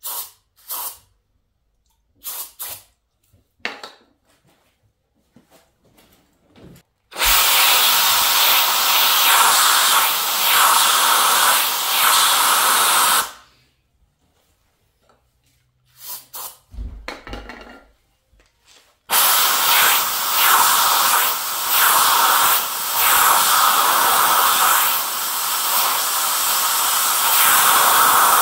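A few short spurts of aerosol brake cleaner sprayed into a head-bolt hole in an aluminium engine block. Then a compressed-air blow gun blasts the hole dry: one loud hiss of about six seconds, a couple of short puffs, and a second long hiss of about nine seconds. This is the cleaning and drying of the hole so the thread locker will hold.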